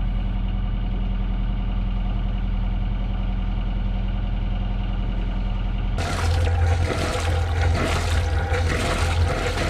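Sailing boat's inboard engine idling with a steady low hum. About six seconds in it becomes louder and rougher, with a hiss over the top.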